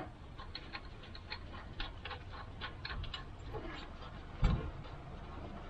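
Faint, scattered light clicks and ticks of metal parts and hand tools as a tractor's voltage regulator is worked free of its mounting, with one dull thump about four and a half seconds in.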